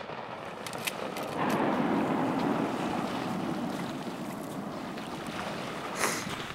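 A wounded bull moose thrashing in river water: a steady rush of splashing and churning water, with a brief louder burst near the end.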